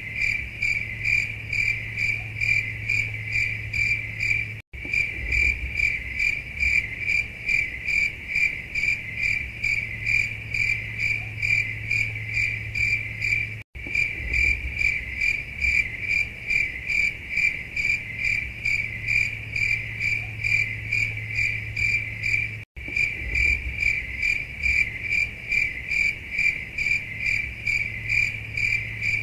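Crickets chirping steadily, the stock 'awkward silence' sound effect: a high-pitched chirp repeating a few times a second over a low steady hum. The sound cuts out for an instant about every nine seconds, as a looped recording does.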